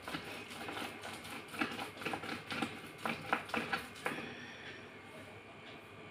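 Wet slate pencils being crushed under a rolling pin on a stone slab: a dense, gritty crunching and crackling of many small snaps, loudest between about one and a half and four seconds in, then dying down to a soft rubbing.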